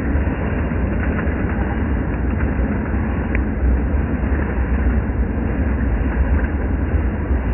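An O-scale model train running on sectional track, with a steady rumble of its wheels on the rails as the cars roll past.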